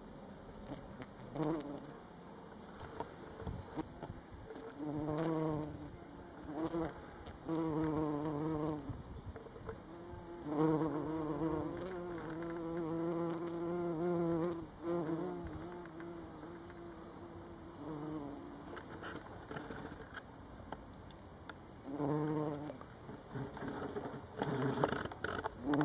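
Bumblebee buzzing as it flies among and works the flowers, a low wavering hum. It comes and goes in bouts: several short ones, a longer one of about five seconds starting around ten seconds in, and more near the end.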